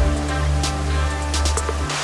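Background music with a steady bass line and sharp drum hits, cutting off just before the end, when a rushing snowmelt stream takes over.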